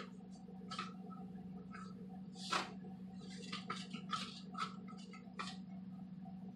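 Salt shaken from a salt canister into a metal spoon: about a dozen short, irregular, gritty spurts of grains hitting the spoon, over a steady low hum.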